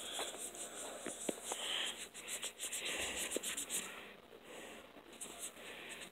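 A disinfecting wipe being rubbed on a doll's chin, a scratchy rubbing in quick repeated strokes with a few small knocks of handling, growing quieter about four seconds in.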